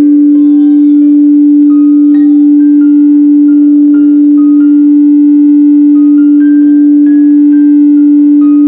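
Quartz crystal singing bowl ringing one loud, steady pure tone that holds unbroken. Softer bell-like notes of a slow melody change about every half second above it.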